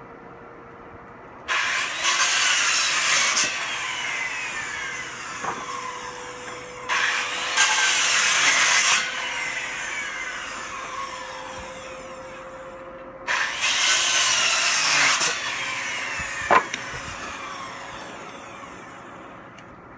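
Power saw cutting wood planks three times, each cut about two seconds long and followed by a falling whine as the blade spins down. A sharp knock comes about two-thirds of the way through.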